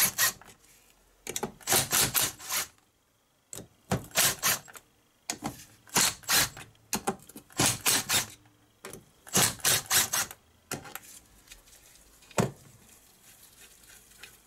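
Cordless impact driver hammering in short bursts about every two seconds, backing bolts out of a 1970 Briggs & Stratton 2 hp engine's crankcase. Lighter clatter follows, with one sharp click near the end.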